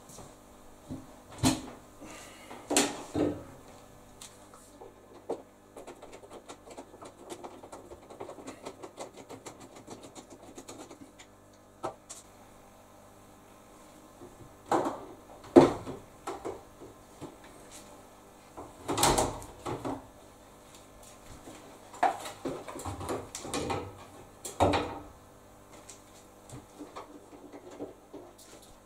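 Plastic and metal parts of a washing machine being handled as it is taken apart: irregular knocks, clunks and rattles, with the loudest clunk about halfway through.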